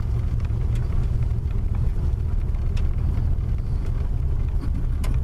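Car driving over a gravel road: a steady low rumble of tyres and engine, with a few sharp ticks.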